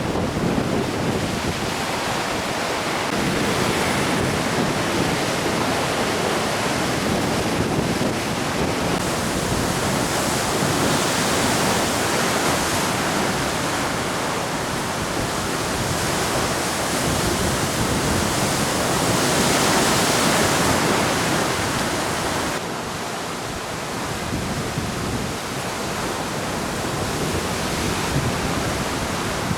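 Sea surf washing in against the shore, with wind blowing on the microphone; the noise swells and eases every several seconds, dropping noticeably about three quarters of the way through.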